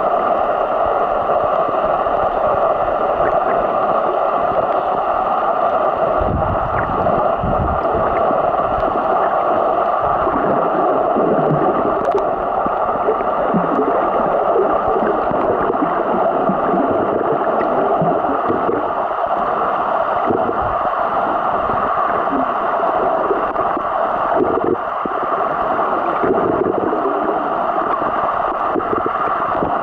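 Muffled underwater water noise picked up by a submerged camera: a steady rush with irregular low gurgles and bumps.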